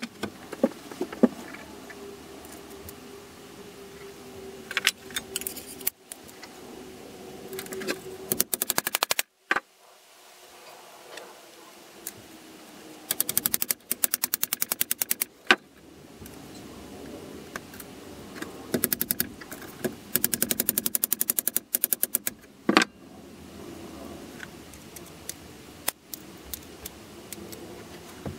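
Ball-peen hammer tapping a steel part of a folding machete against a cast-iron bench vise: several runs of rapid light metallic taps lasting one to two seconds each, with a few single knocks between them.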